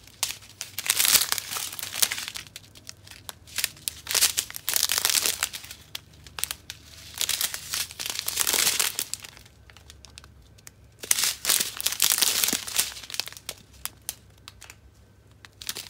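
Small sealed plastic bags of square resin diamond-painting drills crinkling as they are handled and turned in the hands, in a string of short bursts with brief pauses between them.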